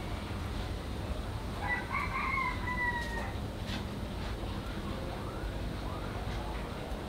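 A rooster crows once, about a second and a half in, a call lasting under two seconds that drops in pitch at the end.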